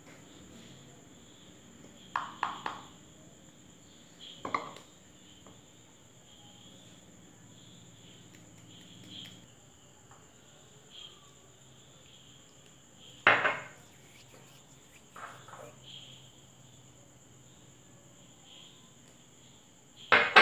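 Several separate clinks and taps of a plastic measuring cup, a spoon and small glass bowls against a steel mixing bowl as flour and spices are added, a few seconds apart, over a faint steady high-pitched background hum.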